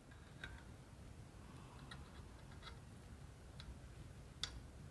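A few faint, scattered small clicks and ticks as gloved hands handle and seat greased metal gears in an airsoft AEG gearbox shell, the sharpest click near the end.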